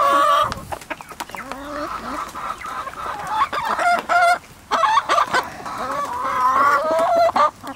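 Backyard chickens clucking and calling over one another in a steady run of wavering calls, with a brief pause a little past halfway.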